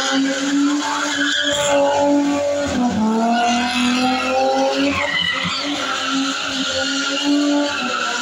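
BMW E30 with a swapped Toyota 1UZ V8, revving high while drifting, its tyres squealing and skidding. The engine note dips briefly about three seconds in, then climbs back and holds.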